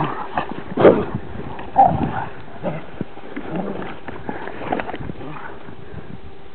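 Dogs play-fighting, with short growls and barks over the first five seconds, the loudest about a second in; after that the calls stop.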